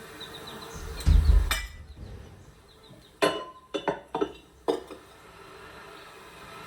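A low thump about a second in, then a quick run of five sharp clinks and knocks of dishes and cutlery being handled.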